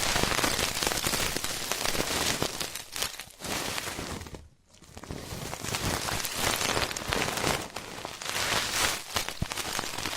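Ear-cleaning ASMR sounds: close, crackly scratching and rubbing at the microphone, with a short pause about halfway through.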